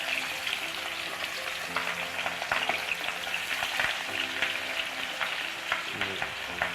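Marinated chicken breast pieces deep-frying in hot oil: a steady sizzle with many sharp crackling pops.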